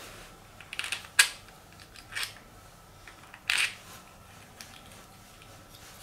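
3D-printed plastic star knobs clicking and clacking against each other as they are handled and fitted together: a handful of light clicks and short rattles, the sharpest about a second in, then a quiet stretch.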